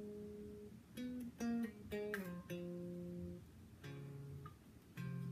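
Taurus T-24 electric bass played through a bass amp: a slow run of plucked notes, each held ringing for up to about a second, some with two notes sounding together.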